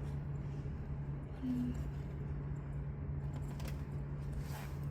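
Faint clicks and handling sounds from a washing machine's mode controls being worked, over a steady low hum.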